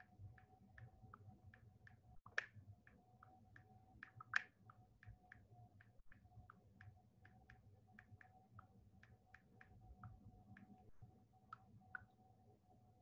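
Faint, quick clicking, about three clicks a second with two sharper ones early on, over a faint steady electrical whine and low hum.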